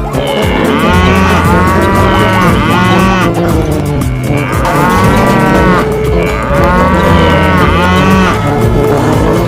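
Stampede sound effect: large animals calling in repeated groups of rising-and-falling bellowing calls over a continuous low rumble of the running herd.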